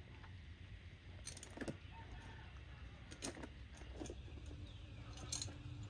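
A few short animal calls and clicks over a low steady hum.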